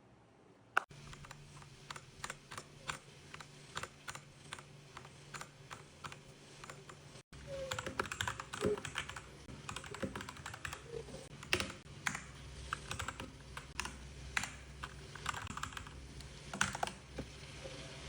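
Redragon K617 Fizz 60% mechanical keyboard being typed on: separate key presses at first, then faster, denser typing after a brief break about seven seconds in.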